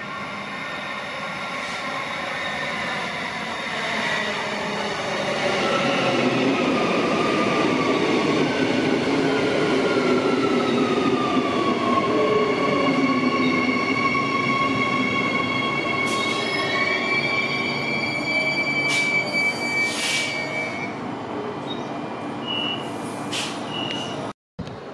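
Electric suburban train pulling into the platform and stopping. Its motor whine falls in pitch as it slows, and it grows louder over the first few seconds as it comes alongside. A steady high tone follows, with a few short sharp noises near the end while it stands at the platform.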